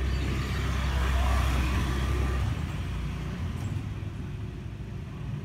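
Low engine rumble of a motor vehicle with a hiss over it, louder in the first half and easing off about halfway through.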